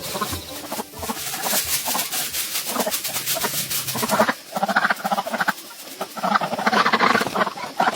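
Farm animals calling: a run of rapid clicking and rustling in the first half, then repeated short pitched calls from about halfway through.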